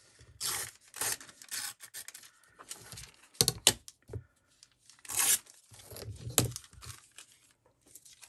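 Paper being torn by hand in several short rips, with handling of the paper between them.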